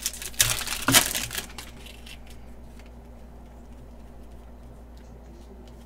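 Wrapper of a Panini Mosaic basketball card pack being torn open and crinkled by hand: a crackling burst in the first second and a half, then only a faint steady hum.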